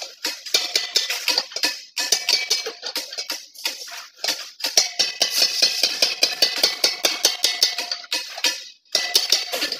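A steel bar knocking and scraping against the inside of a motorcycle fuel tank as it is levered through the filler neck to push out a dent. It makes quick, irregular metallic clicks while the hollow tank rings, with a short pause near the end.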